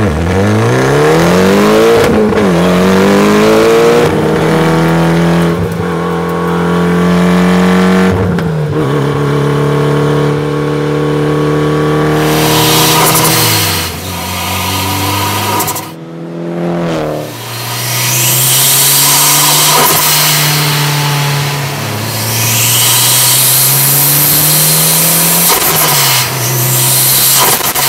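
Mitsubishi Lancer Evolution X's turbocharged four-cylinder engine pulling up through the gears, its pitch climbing and then dropping back at each shift. After a brief dip about sixteen seconds in, it runs steadier, rising and falling gently.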